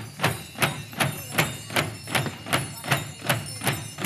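Drums carried by a line of processing dancers, beaten together in a steady rhythm of about two and a half strikes a second.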